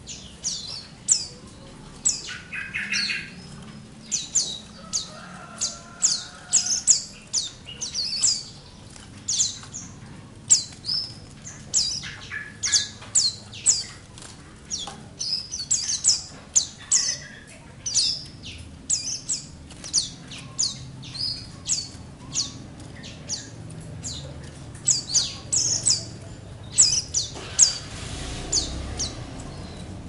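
A group of white-eyes kept together in one cage chirping almost without pause: many short, high chirps from several birds, often overlapping.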